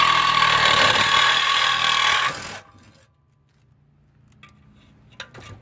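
Cordless reciprocating saw cutting through the steel exhaust pipe at the muffler, running loud and steady, then stopping about two and a half seconds in.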